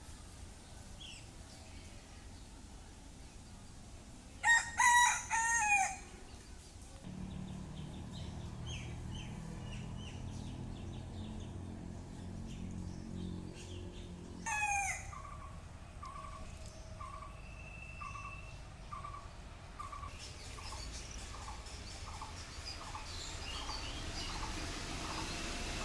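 A rooster crows once, loud and drawn out, about five seconds in. Later comes a short falling call, then a string of short, evenly spaced calls about a second apart, with faint bird chirps behind.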